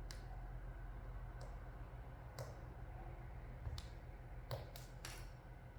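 About six light, sharp clicks and ticks from adhesive tape being peeled up off a laptop's display cable, over a low steady hum.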